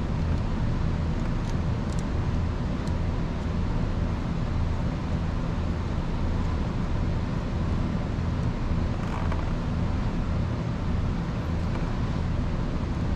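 Steady low hum of background machinery, with a few faint light clicks about two seconds in and again near the middle.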